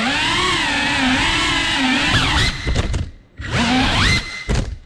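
FPV cinewhoop quadcopter's motors and ducted propellers whining, the pitch rising and falling as the throttle changes. The sound drops away almost to nothing twice, about three seconds in and again near the end, then comes back.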